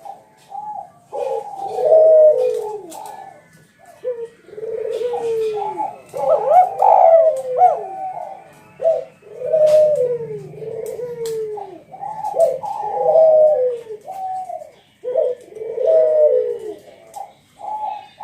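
Spotted dove (tekukur) cooing loudly and repeatedly, a steady run of coo phrases, each falling in pitch.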